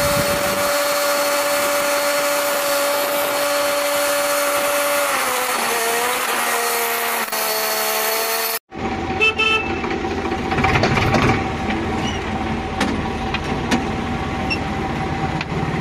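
Tractor engine running at steady revs with a droning pitch, easing off about five seconds in. A sudden cut a few seconds later leads to a quieter, rougher engine hum with scattered clicks and knocks.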